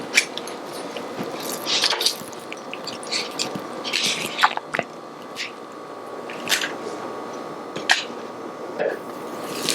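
Roasted vegetables being served onto a plate with kitchen utensils: scattered soft clicks, scrapes and squishy sounds at uneven intervals.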